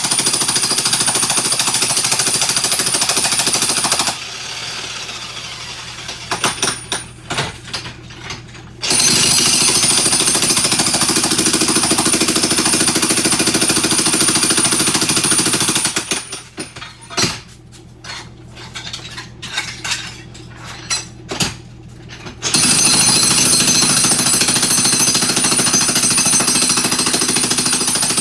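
Jackhammer breaking up floor tile, hammering in three long runs and stopping twice for several seconds, with scattered knocks and clatter during the stops.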